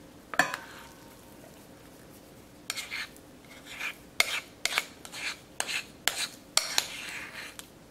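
Mashed taro scraped off a ceramic plate into a stainless steel mixing bowl: one knock of dishware just under half a second in, then from nearly three seconds a string of about ten short scrapes and clinks.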